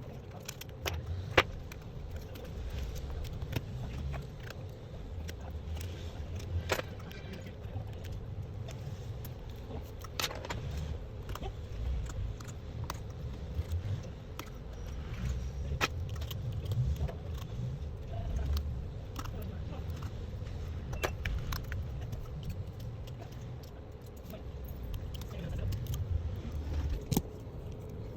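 Scattered sharp metallic clicks and taps of small repair tools handled on a workbench, every few seconds and irregular, over a steady low rumble with a faint hum.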